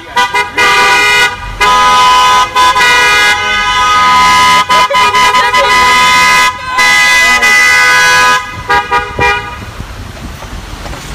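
Several car horns honking together in long blasts with short breaks; the honking stops about nine seconds in.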